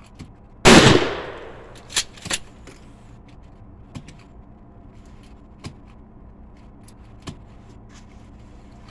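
A single shotgun blast with a short echoing decay, followed about a second later by two sharp clacks of the gun being handled.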